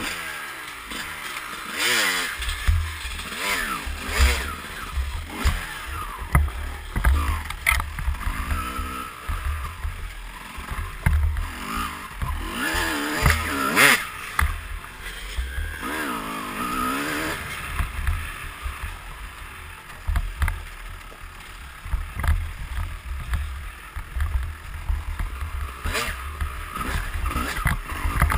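2004 Kawasaki KX250 single-cylinder two-stroke dirt bike engine revving up and down repeatedly while riding a trail. Heavy low rumble from wind and jolts on the helmet-mounted microphone runs underneath.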